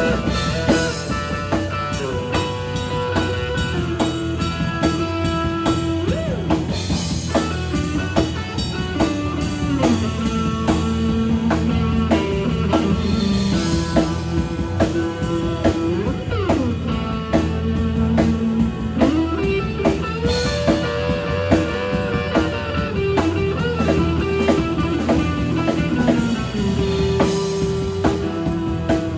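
Live band playing: electric guitar over electric bass and drum kit, with notes that bend up and down in pitch.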